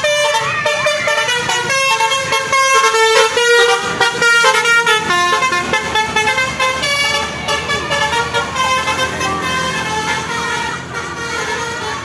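Basuri telolet horn on a tour bus: a multi-tone musical air horn playing a melody of several notes at once. The notes change quickly in the first half and are held longer near the end.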